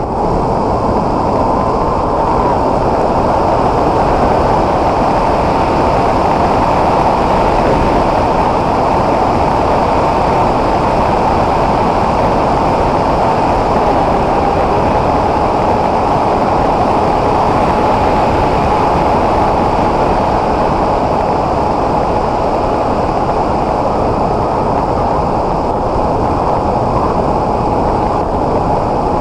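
Onboard audio of an S800 flying wing in flight: a steady rush of air over the airframe and microphone, with the electric motor and propeller holding a steady high hum.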